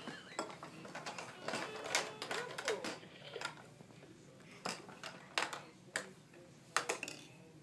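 Hard plastic clacking and knocking as a baby slaps and presses the buttons of a plastic activity-table toy, a series of irregular sharp clicks.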